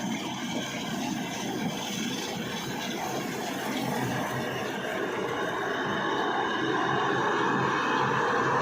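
Combine harvester running steadily, its engine hum under the clatter of the machine, growing louder about halfway through.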